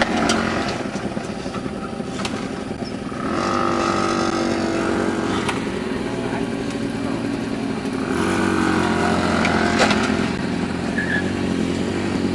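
Several small two-stroke moped engines running, with engine revs swelling about three seconds in and again about eight seconds in.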